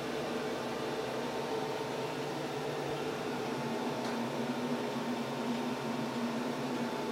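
Steady machine hum with a few fixed pitches over an even hiss, unchanging throughout.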